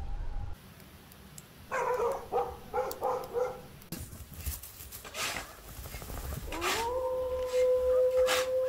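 A young dog giving a quick run of short yelps, then a long howl that rises and holds one steady pitch.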